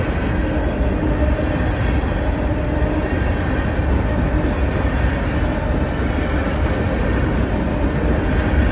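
Train passing close by: a steady, loud rumble of its wheels and cars on the rails.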